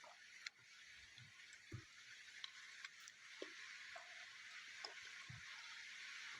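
Faint steady hiss of rain, with a few scattered soft clicks and low thumps.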